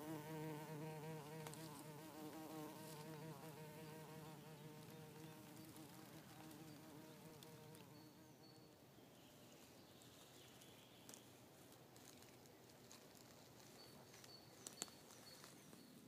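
Bumblebee buzzing in flight, a wavering hum that is loudest at first and fades away over about six seconds as it flies off. Afterwards there are only a few faint high chirps and a sharp click near the end.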